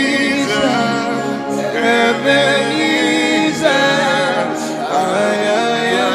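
Gospel prayer chant sung live, with voices carrying a gliding melodic line over held accompaniment.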